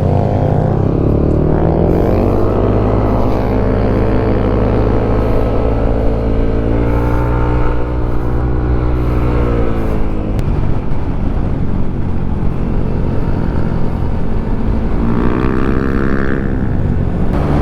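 Motor scooter engine accelerating on the road: its pitch climbs about two seconds in, holds while cruising, drops back around the middle, and climbs again near the end as the rider speeds up.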